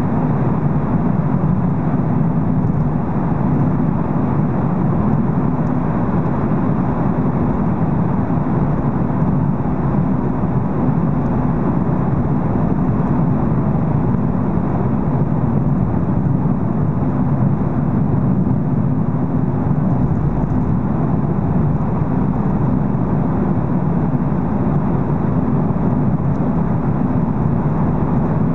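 Steady road noise of a car driving through a road tunnel, heard from inside the car: an even low rumble of tyres and engine that holds the same level throughout.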